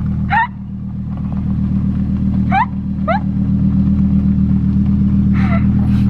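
Lamborghini Huracán's V10 engine running at low revs as the car rolls slowly up a gravel driveway: a steady low drone that grows louder as the car approaches.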